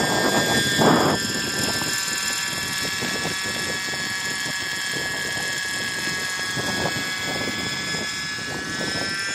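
Raptor RC model helicopter in flight: the high, steady whine of its small nitro glow engine and rotor head, with the rush of the rotor blades. Loudest in the first second while it is close, then steadier as it climbs away.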